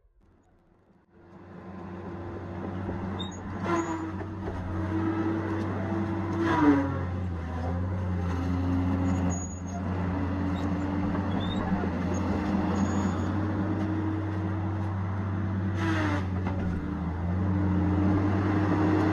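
Tigercat 870C feller buncher's engine running steadily, fading in after about a second. Its note sags briefly twice, as if under load, each time with a short harsh burst.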